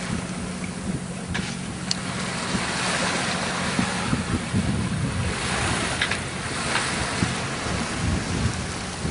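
Wind buffeting the microphone over the rush of water along the hull of a sailing ketch under way, with a steady low hum underneath and a few faint clicks.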